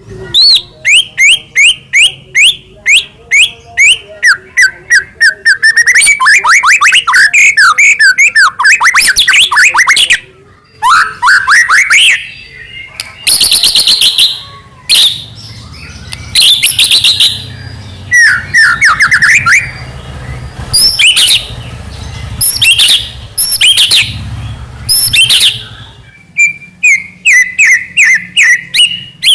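White-rumped shama (murai batu) singing loudly and without pause: fast runs of sweeping whistled notes, rapid trills and chattering phrases that keep changing, with brief breaks about ten seconds in and near the end.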